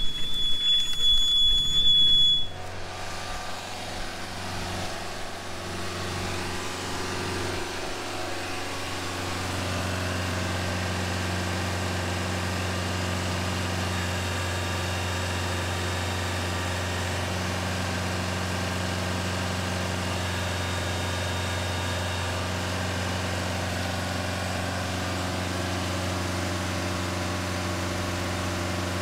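A vehicle engine idling steadily, a low even hum that grows a little louder about ten seconds in and then holds. The first two seconds or so are drowned by a louder rushing noise with a thin high whistle that cuts off suddenly.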